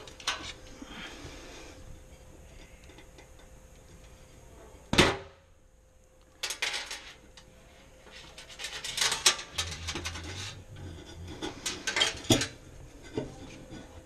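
Metal clinks, knocks and rattles from the stainless-steel top and burner parts of a gas cooktop being handled and fitted back in place. There is one loud knock about five seconds in, then bursts of quick clattering clicks.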